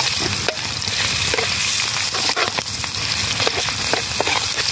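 Hot oil sizzling steadily in a large metal wok over a wood fire while a metal spatula stirs and scrapes through it, with frequent short clicks of the spatula against the pan.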